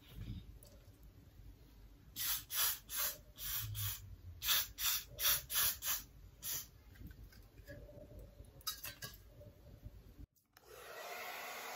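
Got2b aerosol hair spray sprayed along the hairline in a string of short bursts, about ten in four seconds, with a few more later. Near the end a hair dryer switches on and runs with a steady rush.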